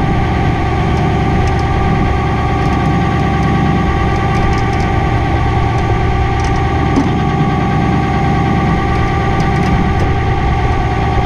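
Tow truck engine idling steadily during a winch recovery, with a constant whine riding over the low running sound.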